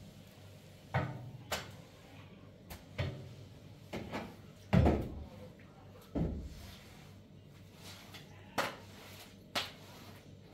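Household knocks and bumps while a kitchen is being cleaned, about eight in all, with a heavier thump about five seconds in.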